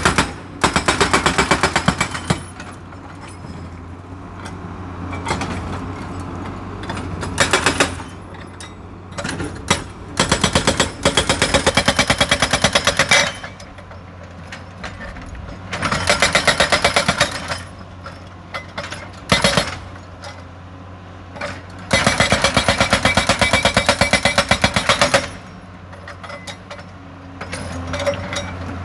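Hydraulic breaker on a Doosan wheeled excavator hammering rock in about six bursts of rapid blows, some under a second, the longest over three seconds. The excavator's diesel engine runs steadily between the bursts.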